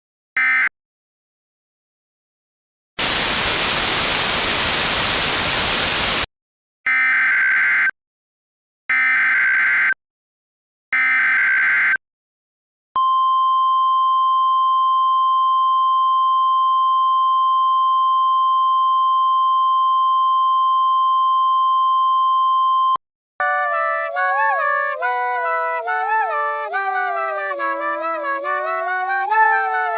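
Emergency Alert System tones: a short screech of digital data right at the start, about three seconds of static hiss, then three one-second warbling SAME header data bursts two seconds apart, followed by a single steady attention tone held for about ten seconds that cuts off abruptly. A synthesized melody starts just after the tone ends.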